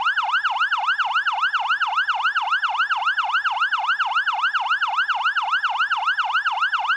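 Fire truck siren in a fast yelp, its pitch sweeping rapidly up and down about four times a second.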